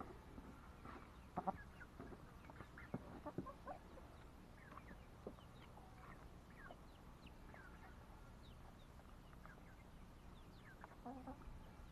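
Chickens clucking quietly in short, scattered calls as they feed on scraps, with a few sharp taps about a second and a half and three seconds in.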